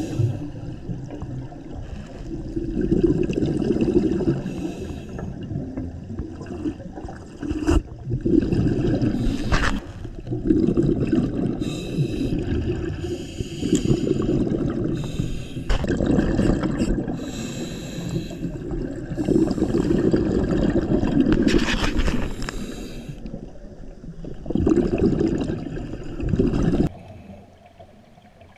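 Scuba diver breathing through a regulator, heard underwater: a burst of bubbling with each exhalation, coming every three or four seconds.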